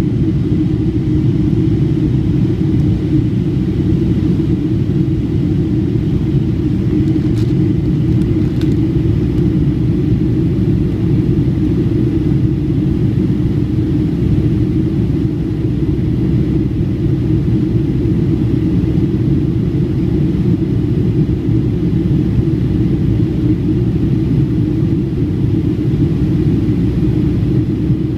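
Steady, deep cabin roar of a Boeing 757-200 jetliner climbing after takeoff, heard from a seat over the wing: engine and airflow noise.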